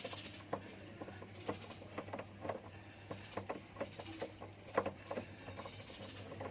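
Screwdriver undoing the screws on a washing machine's plastic panel: short bursts of fine rapid clicking, about five of them, among scattered small clicks and taps of the tool and screws.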